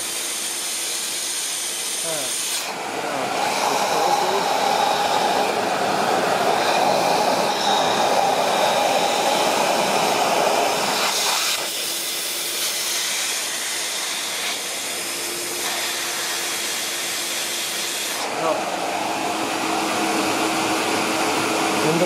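Motor of a 1980 Miele S224 Electronic canister vacuum cleaner running. Its tone grows louder about three seconds in, drops back about eleven seconds in and shifts again near the end, as the suction inlet is blocked by a finger to test the bag-full indicator.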